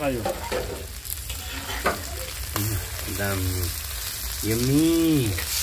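Chicken sekuwa and potatoes sizzling on a stone slab heated over a wood fire, with a few sharp clicks. A person's voice sounds twice: briefly past the middle, then a longer call near the end that rises and falls in pitch.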